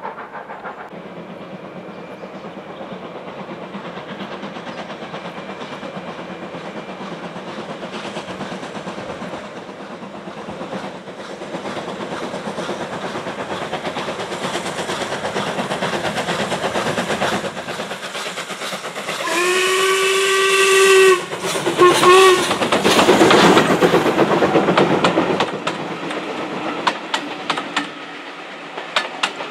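Steam locomotive hauling a train of coaches, its working sound building as it approaches. About two-thirds in it gives one long whistle blast and then a short toot. This is followed by the loudest stretch, a burst of exhaust and steam noise as the engine passes, and the coaches then roll by with wheel clicks over the rail joints.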